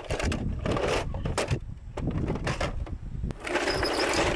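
Plastic clicks and knocks of a toy car-carrier truck case being handled, then from about three and a half seconds a steady engine-like running noise with a faint high whine.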